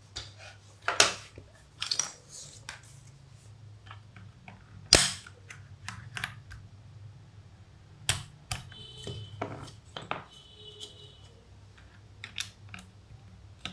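Plastic clicks and clacks of a mechanical keyboard's spacebar keycap being pulled off and a PBT FSA-profile spacebar snapped into place, with irregular knocks, the sharpest about five seconds in.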